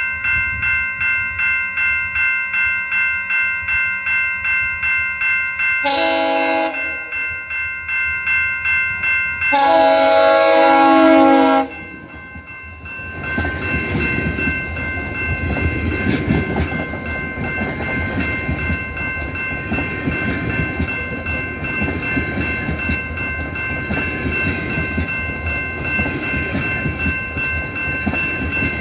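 Level-crossing bell ringing steadily while a passenger train's chime horn sounds one short blast and then a long one of about two seconds for the grade crossing. Right after the horn, the train rolls through with a steady rumble and wheel clatter.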